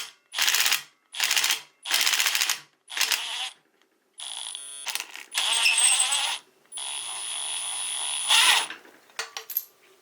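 Battery power tool with an Allen bit turning the screw of a 4G63 valve spring compressor, backing it off to decompress the valve spring. It runs in about six short bursts, then in longer runs with a steady high whine, and stops about nine seconds in.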